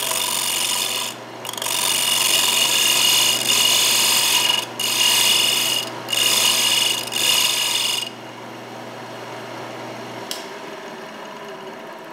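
Wood lathe turning a bowl blank while a turning tool cuts the spinning wood: a loud scraping cut in several passes with short breaks, over the lathe motor's steady hum. The cutting stops about eight seconds in, and the motor hum stops about two seconds later.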